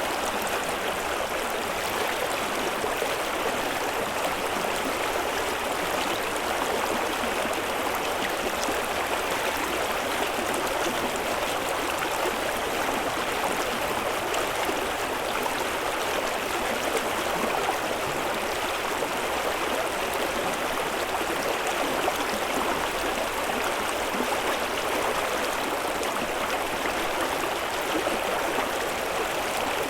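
Running water, like a stream, flowing and splashing steadily.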